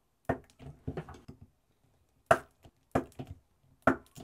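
Handheld spot-welder pen firing weld pulses through a nickel strip onto Samsung 30Q 18650 cell terminals: about five sharp snapping cracks, roughly a second apart, some followed by a small crackle.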